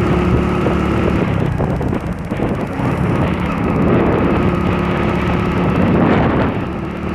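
Hero Passion Pro motorcycle heard from the rider's seat while cruising: its single-cylinder engine runs at a steady note under heavy wind rumble on the microphone. The rush of wind swells about five to six seconds in.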